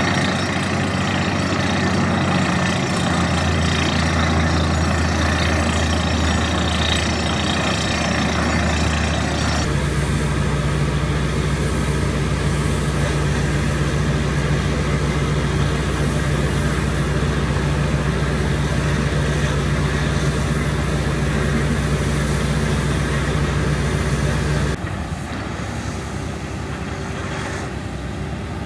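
Truck-mounted borewell drilling rig running steadily, its engine and air compressor making a heavy, constant drone while drilling. The drone changes in pitch about ten seconds in, and near the end it drops to a quieter, more distant drone.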